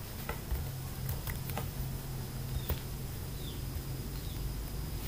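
Quiet room tone in a pause: a low steady hum, with a few faint clicks and three faint, short, high falling chirps near the middle.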